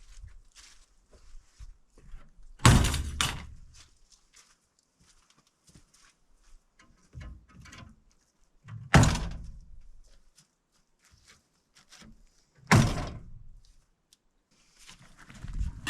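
Three loud thuds a few seconds apart, each ringing out briefly, with quieter knocks between: steel roofing panels being handled and set on the roof framing.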